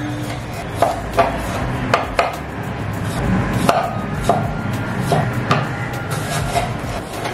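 Knife roughly chopping an onion on a cutting board, with uneven strokes about one or two a second.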